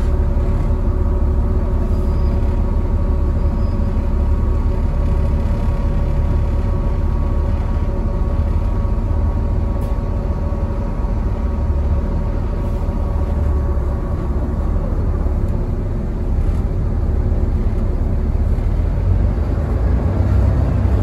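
Volvo B7TL double-decker bus's six-cylinder diesel engine running, heard from inside the bus as a steady low drone. The engine note eases off about three-quarters of the way through and builds again near the end.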